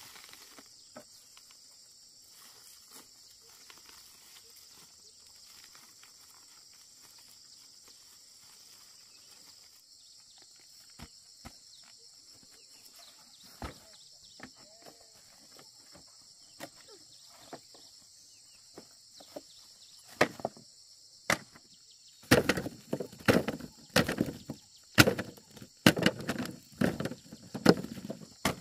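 Dried corn cobs knocking and clattering as they are grabbed from a pile and dropped into a woven plastic sack, in quick irregular handfuls through the last third or so. Before that there are only faint rustles and the odd click, over a steady high-pitched chirring of insects.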